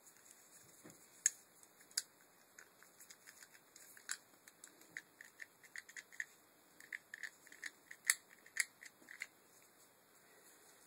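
Small plastic part and cable of a car window regulator being handled and fitted by hand: a faint, irregular run of light clicks and ticks with a few sharper clicks, the loudest about a second in and about eight seconds in.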